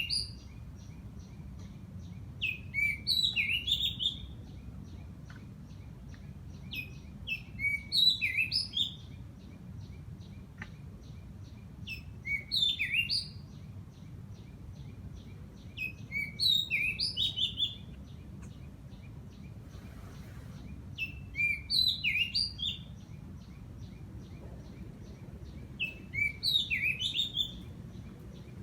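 A songbird repeating the same short, quick phrase of whistled notes about every four to five seconds, seven times over. A fast, steady ticking runs high in the background, over a low rumble.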